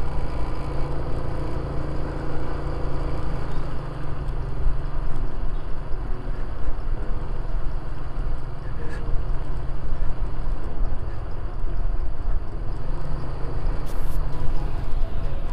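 Small motorcycle engine running steadily while riding at low speed, with a continuous low rumble of wind and road noise.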